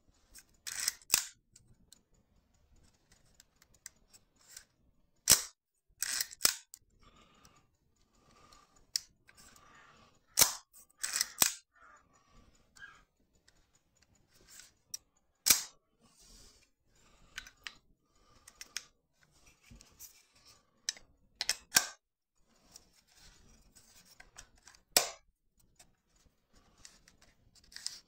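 Sharp metallic clicks from a FED-2 rangefinder camera's mechanism and body parts as it is handled, coming at irregular intervals, some in quick pairs, with softer rattling in between.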